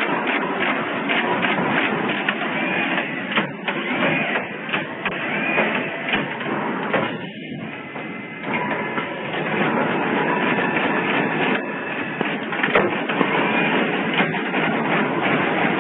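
Automatic PCB component insertion machine running: a fast, dense clatter of mechanical clicks over steady machine noise, easing briefly about halfway through.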